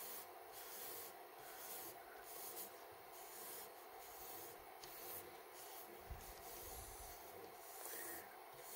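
Faint rubbing of a cloth against a 3D-printed metal case spinning in a small DIY lathe, swelling and fading in an even rhythm about every two-thirds of a second, over the steady hum of the lathe running. The cloth is wiping dust off the freshly sanded surface.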